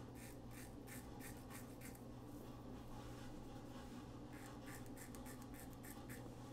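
Single-edge injector razor scraping through lathered stubble in short strokes: a quick run of about seven strokes in the first two seconds, then another run from about four seconds in. A low steady hum sits underneath.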